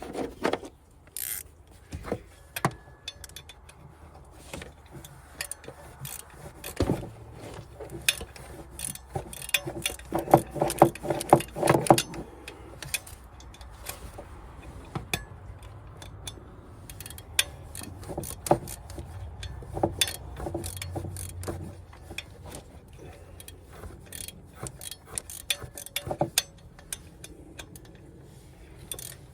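Metal hand tools (wrench, socket and extension) clicking, clanking and rattling against each other and the engine in irregular knocks. The busiest stretch comes around the middle, during work on the fuel rail's relief valve.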